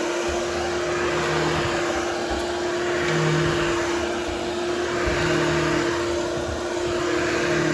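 Hoover HushTone vacuum running steadily with a constant motor whine over its airflow noise, grooming a berber carpet. Its sound swells and eases every couple of seconds as it is pushed back and forth over the pile.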